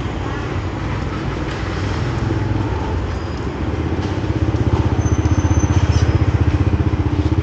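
An engine running close by with a fast, even pulsing beat, getting louder about four seconds in.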